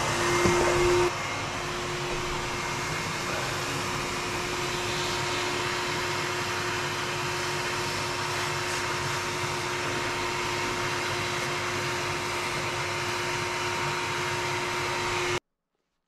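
Bee vac, a canister vacuum cleaner, running steadily with a constant motor whine as its hose sucks bees off an exposed comb. It cuts off suddenly near the end.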